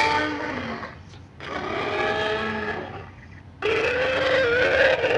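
Allosaurus creature vocalization sound effects: three separate deep calls. A call fades out over the first second, a second call follows, and a third, the longest and loudest, comes near the end with a wavering pitch.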